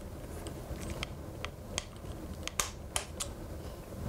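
Irregular sharp clicks from a torque wrench with a 6 mm bit turning the bolt-on axle of a mountain bike suspension fork, as it is tightened to 15 N·m. The loudest clicks come about two and a half to three seconds in.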